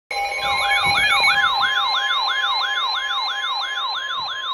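Siren-like emergency alert tone starting abruptly, a yelp that sweeps upward in pitch about three times a second over steady tones.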